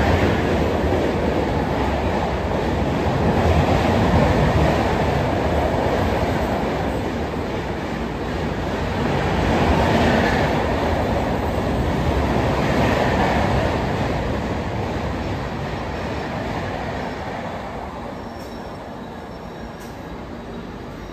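Western Railway suburban electric local train running along the platform, its wheels rumbling and clattering on the rails. The noise eases off over the last few seconds.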